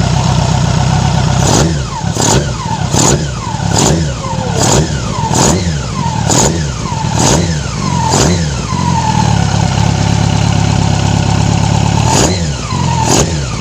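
Yamaha R6's carbureted inline-four engine blipped hard about nine times in quick succession, roughly one every second, each rev dropping straight back, then idling steadily before two more blips near the end. The idle is the one the mechanic calls erratic, from carburettors still out of synchronization.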